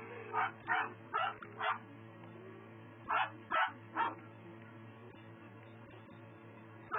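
York-Chi (Yorkshire terrier–Chihuahua cross) puppies yipping in play: four short, high yips in quick succession, then a pause and three more about three seconds in.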